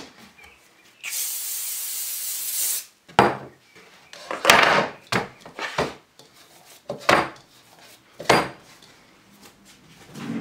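Cooking-oil spray hissing steadily for about two seconds, then a string of knocks and thuds as a plastic mixing bowl and the dough are handled and set down on a glass chopping board.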